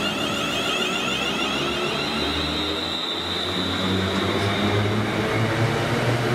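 Jet airliner's engines: a steady rumble with a high whine that comes in about two seconds in and rises slightly.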